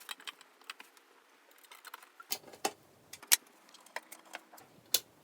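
Scattered light clicks and taps of small metal fittings and wooden furniture panels being handled during assembly, with two sharper clicks about three and five seconds in.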